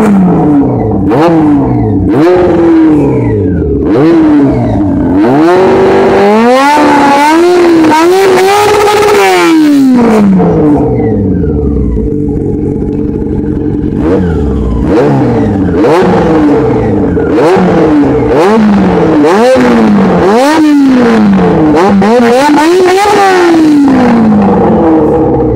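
Honda CB400 motorcycle engine with an Akrapovič aftermarket exhaust being revved in quick blips, the pitch rising and falling about once a second. About a third of the way in it is held up at a higher rev for a few seconds, drops back to a steady idle for a few seconds, then is blipped repeatedly again.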